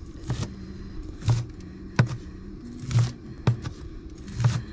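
Vegetables being washed by hand in cold water: irregular short splashes and knocks, roughly one a second.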